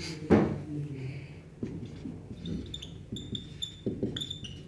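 Dry-erase marker squeaking on a whiteboard in a series of short strokes through the second half. A single knock comes about a third of a second in.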